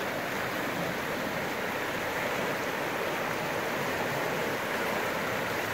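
A shallow, rocky river rushing steadily over whitewater rapids.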